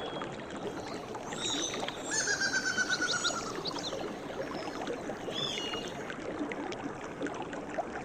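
A forest stream flowing steadily, with birds calling over it: a trilled call about two seconds in and short high calls about five seconds in.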